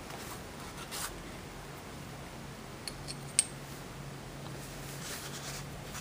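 Small metallic clicks and handling noise from an ASSA pin-tumbler lock cylinder worked in the hands, with one sharp click about three and a half seconds in and a brief soft rubbing near the end as the cylinder's parts are worked apart.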